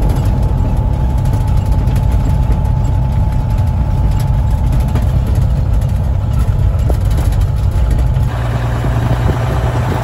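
Semi-truck diesel engine running with a steady low drone, heard from inside the cab while driving; the engine note shifts slightly about eight seconds in.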